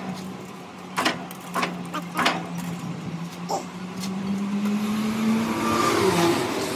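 Metal lathe running with a steady hum, its pitch rising slightly and then dropping near the end, with a few sharp metallic clinks in the first two and a half seconds as the truck wheel hub's bore is cleared of chips and measured.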